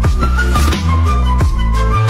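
Music: a flute-like melody over a deep bass beat, with a drum hit about every 0.7 seconds.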